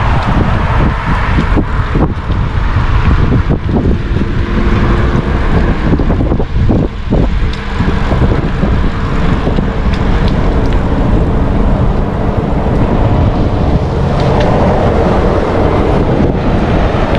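Steady wind buffeting the microphone of a camera on a moving bicycle, with road noise underneath.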